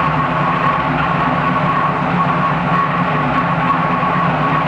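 V8 engine running at a steady speed on an engine dyno, with a constant high whine over the engine note.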